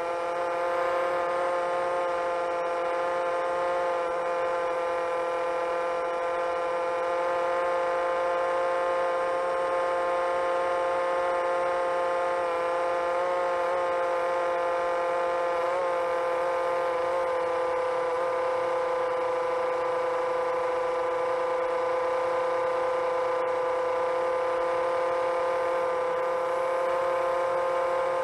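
Quadcopter's electric motors and propellers whining at a steady pitch while cruising, with only slight wavers in pitch.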